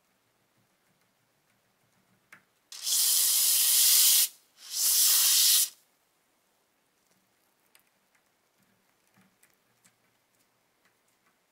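Two long hisses from an aerosol spray can, each about a second and a half with a short gap between, spraying foaming cleaner onto the rusty top and striker wheel of an antique brass lighter. Faint small clicks of the lighter's parts being handled follow.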